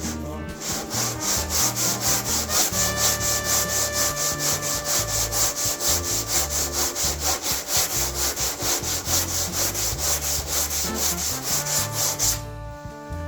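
Hand sanding of a car body panel with a sanding block: rapid back-and-forth rasping strokes, about four a second, that stop near the end.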